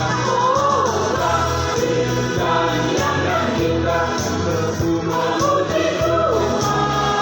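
Choir singing a hymn over an instrumental accompaniment with an evenly pulsing bass line.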